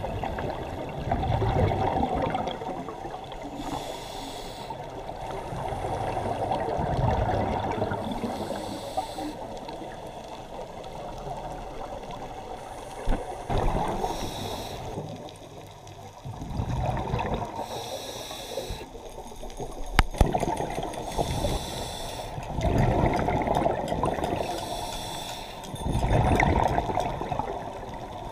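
Scuba diver's regulator breathing heard underwater: a muffled wash that swells every few seconds into gurgling bursts of exhaled bubbles, with a sharp click about twenty seconds in.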